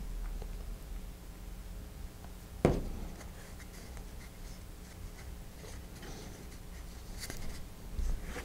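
Quiet handling of small cardboard rocket parts and paper, with one sharp knock about two and a half seconds in as a plastic glue bottle is set down on the cutting mat. A faint rustle of paper comes near the end.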